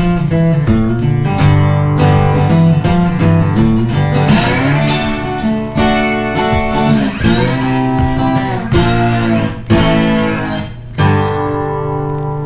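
Background music led by guitar, playing a run of changing chords.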